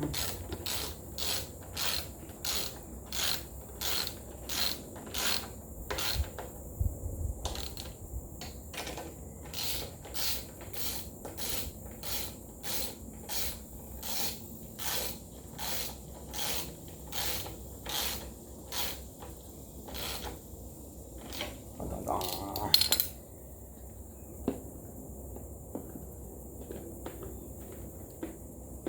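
Hand socket ratchet being worked back and forth to run a bolt down on the radiator mounting, its pawl clicking on each back-swing at about one and a half strokes a second. The clicking stops about 20 seconds in, followed by a short louder rasping burst and then only a few faint clicks.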